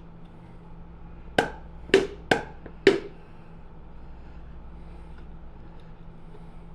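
Four sharp knocks in quick succession, a mustard bottle being banged to get the mustard out.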